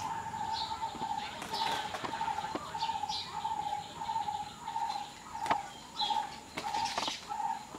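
Plastic feed sack crinkling and rustling in short bursts as kittens scramble over it, over a repeated high chirping note about twice a second.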